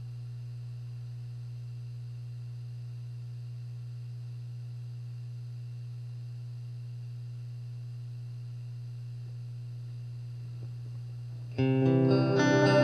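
Steady electrical hum from the guitar amplifier with the EarthQuaker Devices Space Spiral modulated delay pedal switched on. Near the end an electric guitar (a Squier Bullet Stratocaster) starts playing through the pedal into a Fender Super Champ XD amp, much louder, with modulated delay repeats ringing on.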